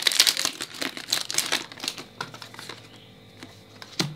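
Foil Pokémon booster pack wrapper crinkling as it is torn open and handled, the crinkling thinning out after about two seconds. A short knock near the end.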